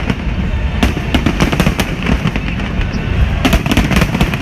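Fireworks going off in quick crackling volleys over a constant deep rumble of booms, with bunches of sharp cracks about a second in and again near the end.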